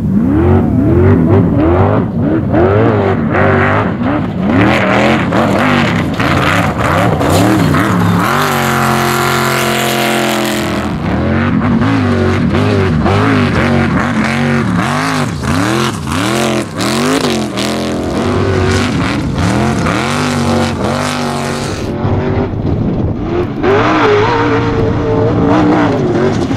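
Off-road race buggy's engine revving hard again and again, its pitch climbing and dropping with each burst of throttle, held at a steady high pitch for a few seconds near the middle. Knocks and clatter run through it.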